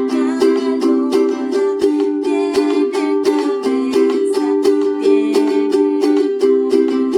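Instrumental music: chords strummed on a string instrument in a steady rhythm, about three strokes a second, with no singing.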